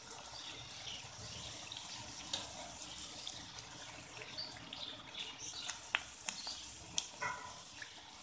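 Stuffed kachoris deep-frying in hot oil in a karahi: a steady sizzling hiss of bubbling oil, with a few sharp clicks about six and seven seconds in.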